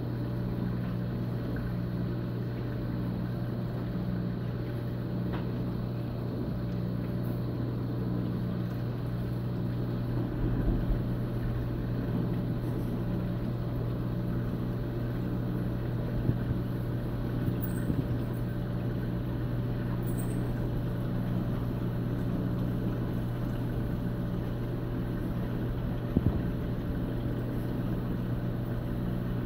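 Steady low hum of aquarium pumps over a faint wash of noise, with a few brief knocks.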